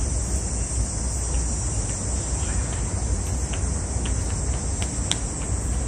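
Steady high-pitched insect drone from the trees, unbroken throughout, over a low steady rumble, with a few faint high ticks in the second half.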